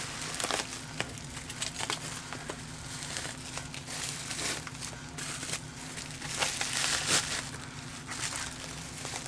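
Bubble wrap crinkling and crackling as it is pulled off and handled, in irregular bursts of small crackles, over a steady low hum.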